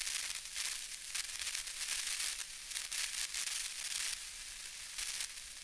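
Television static sound effect: a crackling, mostly high-pitched hiss that surges and eases unevenly.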